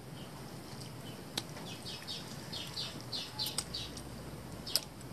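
A small bird calling: a quick run of about ten short, high, falling chirps lasting about two seconds, starting about two seconds in. Two sharp clicks stand out, one before the chirps and a louder one near the end.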